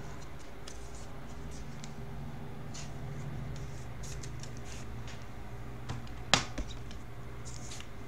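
Trading cards being handled and thumbed through by hand, with soft scratchy rustles over a steady low hum. A single sharp tap about six seconds in, then a smaller one just after.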